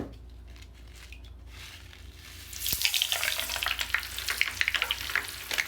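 Mr. Bubble Magic Bath Crackles crystals crackling and popping, a dense fizzy crackle that starts about halfway in and keeps going.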